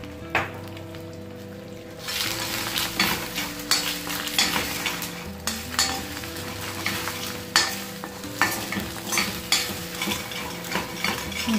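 Eggs frying in oil in a stainless steel pan, sizzling faintly at first. From about two seconds in the sizzle turns loud, with a spatula scraping and tapping the pan again and again as the fried eggs are broken up and scrambled.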